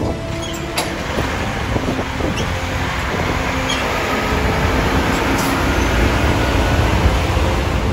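Heavy diesel truck engine running close by, a low rumble that grows louder in the second half, with a couple of sharp clicks.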